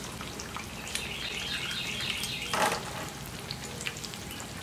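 Eggs frying on a steel plow-disc discada over low heat: a steady sizzle with small crackles, and a brief louder burst of sizzle about halfway through as another cracked egg goes onto the hot disc.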